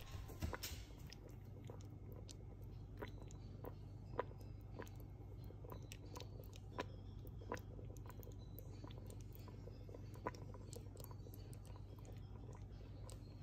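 Faint, irregular little pops and crackles from a pot of fish paksiw in vinegar broth simmering, over a low steady hum.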